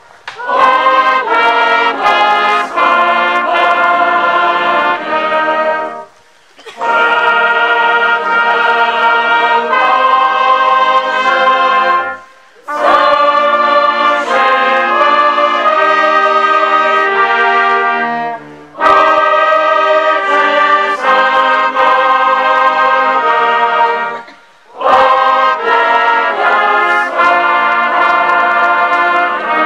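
Brass band playing a slow piece in held chords. The music comes in phrases of about six seconds, with a brief break after each.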